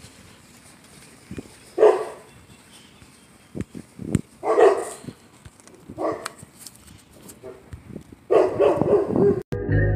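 A dog barking in separate bouts: single barks about two, four and a half and six seconds in, then a quicker run of barks near the end.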